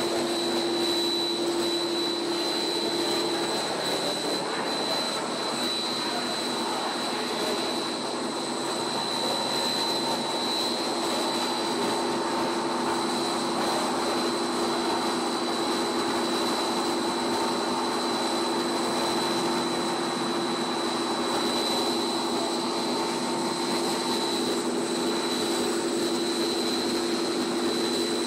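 Blown film extrusion line running: a steady mechanical drone with a constant high whine over a lower hum.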